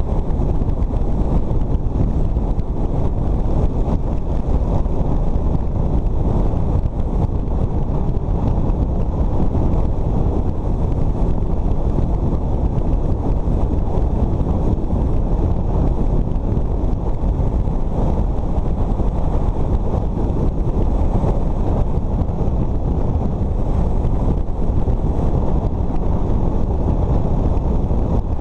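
Steady wind noise rushing over the camera microphone of a moving motorcycle, a loud, even low rumble.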